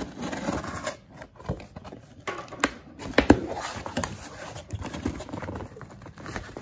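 Cardboard box being opened by hand. A knife slits the packing tape at the start, then the flaps are pulled open and the smaller cardboard boxes inside are shifted and handled, with scraping, rustling and scattered knocks.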